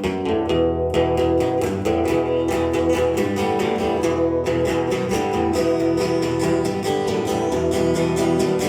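Acoustic guitar strummed in a steady rhythm, playing the instrumental opening of a song.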